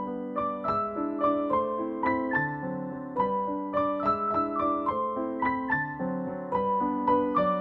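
Background piano music: a melody of evenly paced notes, about three or four a second, over lower accompanying chords.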